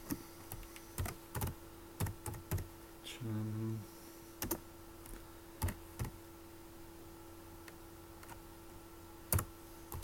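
Computer keyboard being typed on: separate key presses in small clusters with pauses between them, over a faint steady hum.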